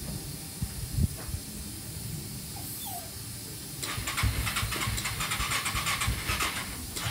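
Electric starter cranking the Yamaha Bear Tracker 250's single-cylinder engine in a rhythmic burst of about three seconds, starting a little before halfway and stopping just before the end. Earlier there is a low rumble with a couple of knocks about a second in.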